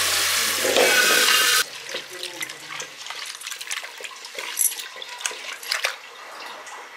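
Tap water pouring into an aluminium pressure cooker holding rice and lentils, cutting off suddenly under two seconds in. Then a hand swishes and rubs the grains in the water, with small scattered splashes.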